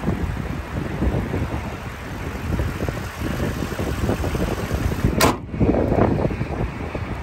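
Wind buffeting and a low rumble, then a single sharp slam about five seconds in as the pickup truck's hood is shut.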